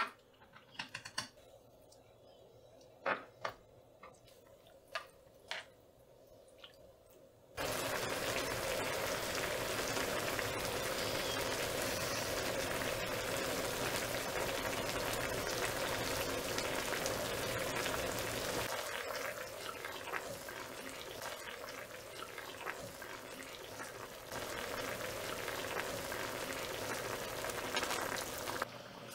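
A few light clicks of metal tongs against the pan and ingredients, then, starting suddenly about a quarter of the way in, a hot pot of spicy broth boiling and bubbling steadily in a griddle pan on a gas burner.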